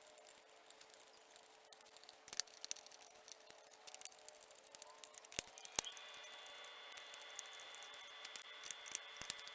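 Small clicks and scrapes of a screwdriver working a Torx screw and handling the polymer stock parts, with a few sharper clicks around the middle. A faint steady high tone comes in about six seconds in.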